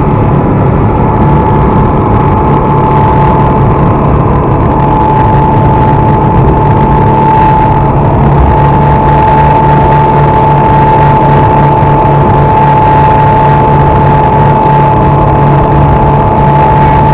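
Twin Honda 225 four-stroke outboard motors running hard at cruising speed, a loud, steady high whine over a low drone, with the rush of the wake water and wind.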